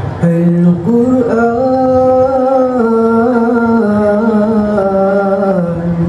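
Male nasyid singers singing through microphones, opening with long held notes that step up and down in pitch.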